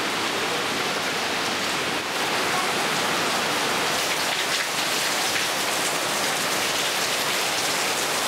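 Steady heavy rain, a dense even patter that holds at one level throughout.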